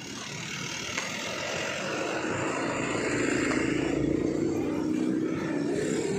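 An engine droning steadily, growing louder over the first few seconds and then holding.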